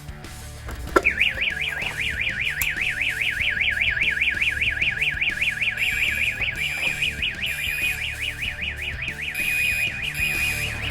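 Electronic fire alarm sounder: after a click about a second in, a loud rapid warbling tone, about eight sweeps a second, that flattens toward a steadier tone in the second half.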